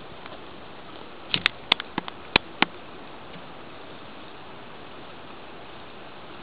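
A quick cluster of about eight sharp clicks and taps, starting a little over a second in and lasting about a second and a half, over a steady faint background hiss.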